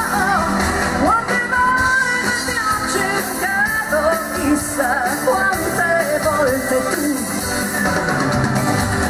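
Live pop band with a female lead singer, her sung notes held and wavering over the band's accompaniment.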